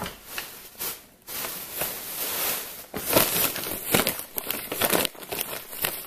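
Plastic shopping bag crinkling and rustling unevenly as hands rummage through it.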